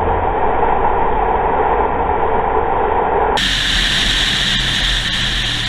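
Steady roar of a motorcycle riding at speed, engine and wind rush on the helmet-camera microphone. About three and a half seconds in the roar abruptly turns brighter and hissier.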